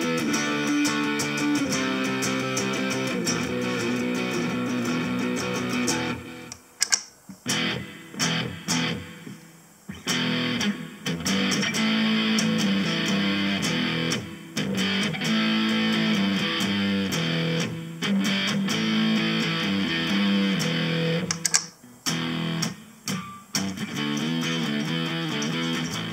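Electric guitar played through a Harley Benton DNAfx GiT multi-effects preset, ringing chords and notes with a few short staccato stops partway through and again near the end.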